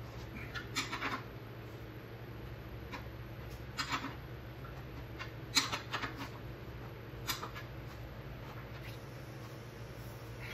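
A few separate sharp metallic clicks from a ratchet wrench and drain plug as the hydraulic tank's drain plug is loosened, over a steady low hum.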